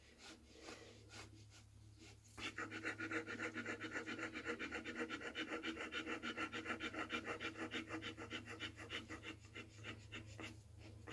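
Belgian Malinois mother dog in labor panting fast and evenly. The panting starts about two seconds in after a quiet moment, and it eases near the end.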